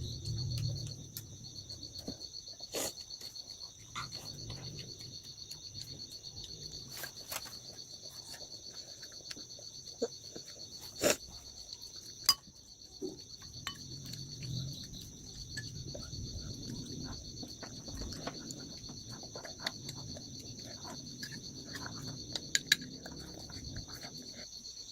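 Steady high insect chorus of crickets, with a few sharp clicks and clinks scattered through it, the loudest two close together about halfway through.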